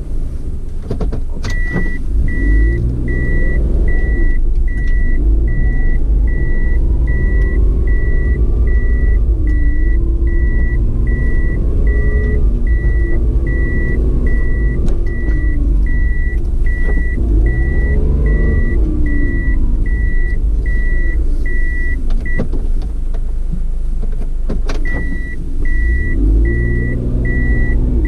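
Car engine running as the vehicle drives slowly, its pitch rising and falling several times as it speeds up and eases off. A regular electronic beep sounds about twice a second, stops for a couple of seconds past the twenty-second mark, then starts again.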